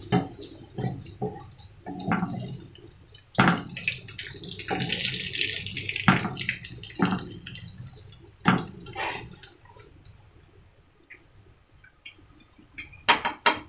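Fried chicken bites being lifted out of hot oil with a wire strainer spoon and a wooden spatula: utensils knocking and scraping against the frying pan and strainer, with oil dripping off. A few sharp taps near the end as the strainer is knocked on the plate.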